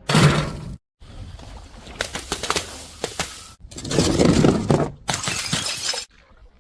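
Objects being smashed and crushed, heard as dense crackling and crunching in several short bursts, each broken off by a sudden cut.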